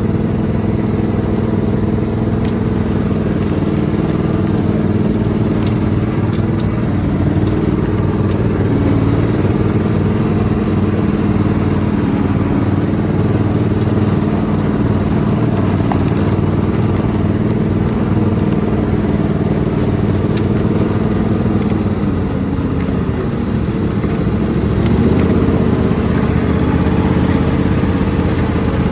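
Riding lawn mower engine running steadily, dipping in pitch a little past twenty seconds in, then picking back up.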